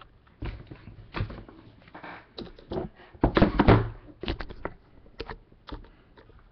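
Hard plastic card cases clicking and knocking as they are set down and slid about on a table, with handling bumps from the camera being moved. There is a louder cluster of thumps a little past halfway.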